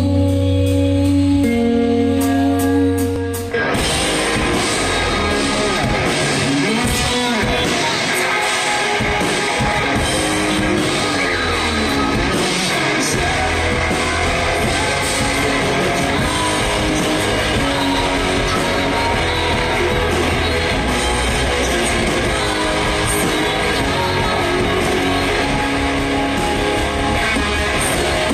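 Live rock band playing loud with electric guitar. A held chord rings for the first few seconds, then the full band comes in about three and a half seconds in and plays on densely.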